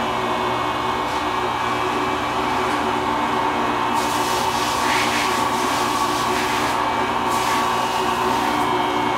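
Steady hum of a running electric motor, holding one fixed pitch, with a few faint rustles and scrapes about four, five and seven seconds in.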